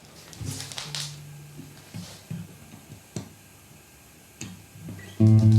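Fender CD-60 acoustic guitar played through an active speaker via its pickup: a few faint clicks and a soft low string note, then, about five seconds in, a loud strummed chord rings out.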